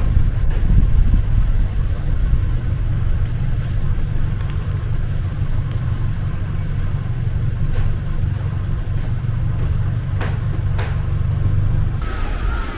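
Steady low rumble of wind buffeting the microphone, with a few faint clicks, changing abruptly near the end.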